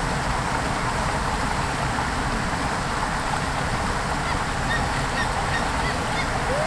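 Steady rush of shallow water in a salmon creek, with gulls calling several times in short, high cries in the second half.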